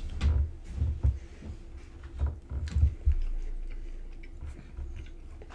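Two people biting into and chewing Pop-Tart toaster pastry. The bites and chews come irregularly, busiest in the first three seconds, then fainter.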